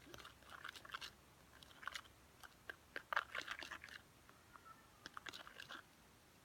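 Sand being handled and stirred into a glue mixture: irregular gritty crunches, scrapes and small clicks, busiest around the middle and quieter near the end.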